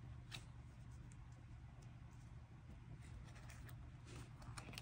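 Faint, scattered light clicks and taps of plastic-sleeved photocards being handled and set down on a table, over a low steady room hum.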